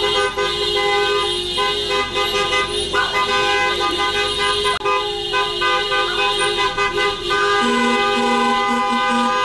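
Vehicle horns sounding in long held blasts at several pitches at once. Near the end a lower horn beeps on and off in short repeated blasts.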